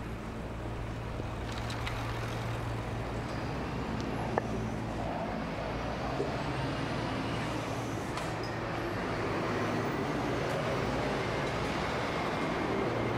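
Road traffic on a city street, with a heavy lorry's engine drawing nearer and the sound growing louder through the second half. A single sharp click about four seconds in.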